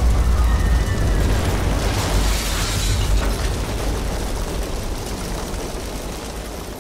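A deep rumbling boom from trailer sound design, with a rushing hiss about two seconds in, slowly dying away.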